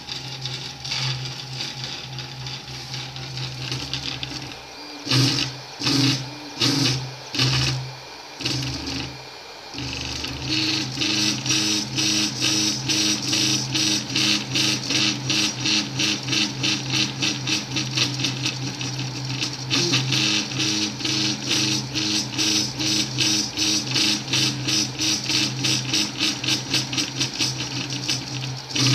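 Anet E16 3D printer's stepper motors whining and buzzing as the print head moves while printing off the edge of the hotbed. About five short separate moves come around the middle, then a fast, regular back-and-forth pulsing.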